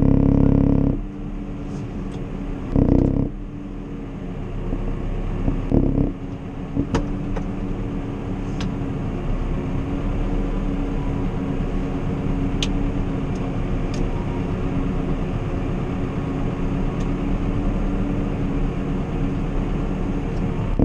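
Tractor engine running steadily under load, heard inside the cab while it drives the sand sweeper through the power take-off, with a low steady hum. A few louder thumps come in the first second, at about three seconds and at about six seconds.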